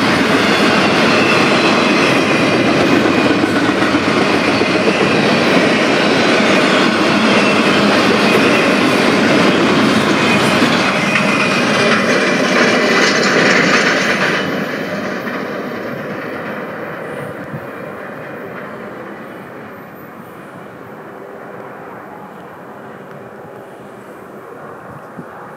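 Freight cars of an intermodal train rolling past, a loud dense rumble of wheels on rail. About halfway through the last car goes by and the sound drops off sharply, then fades away as the train recedes.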